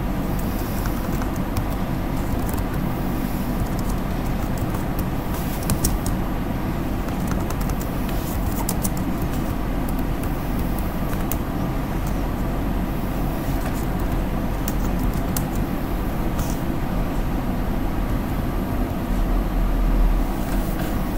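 Steady low background rumble with scattered clicks from a computer keyboard as router commands are typed.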